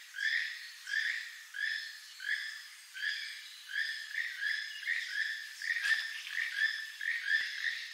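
Keel-billed toucan giving its song: a frog-like croak repeated steadily, about two to three calls a second.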